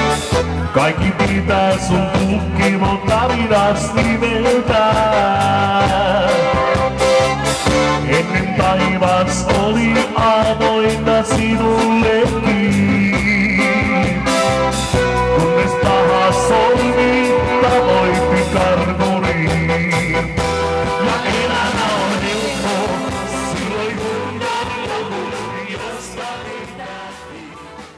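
Live band playing an upbeat pop-rock number on a Yamaha electric keyboard and drums. The music dies away near the end.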